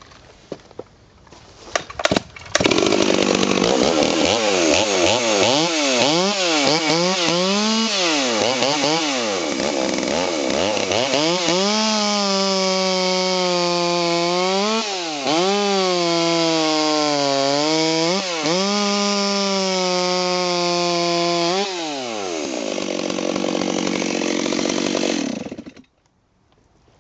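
Ported Stihl 038 Super two-stroke chainsaw with a 52 mm big-bore cylinder, pull-started and catching about two and a half seconds in. It is revved up and down several times, then held at high revs under load cutting frozen wood, with brief dips in pitch. It drops back near the end and cuts off suddenly.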